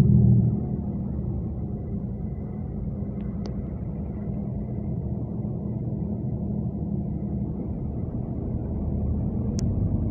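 Bus engine and road noise heard from inside the passenger cabin while driving: a steady low rumble that drops in level about half a second in and rises a little near the end. A couple of faint clicks come about three and a half seconds in, and a sharp click comes near the end.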